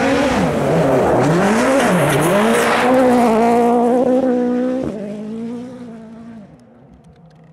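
2017 Ford Fiesta WRC prototype's turbocharged 1.6-litre four-cylinder rally engine being driven hard, its revs rising and falling several times, then holding a high steady pitch until a gear change drops it sharply about five seconds in. The engine then runs at a lower steady pitch and fades as the car moves away.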